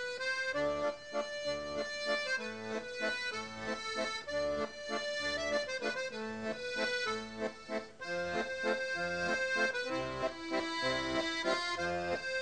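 Instrumental background music: a melody of long held notes over a bass line that moves in short, even steps.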